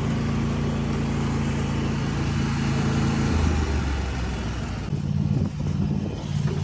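An engine running steadily, dropping to a lower pitch a little past three seconds in, then returning with an uneven pulsing toward the end.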